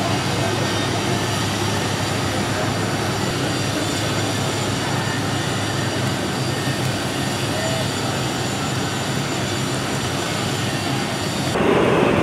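Steady low engine drone over a broad background rush of outdoor noise; just before the end it turns louder and duller.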